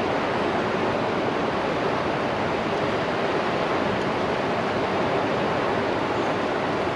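Steady rushing of water, an even roar without a break or rhythm, typical of river water pouring through a dam's tailwater.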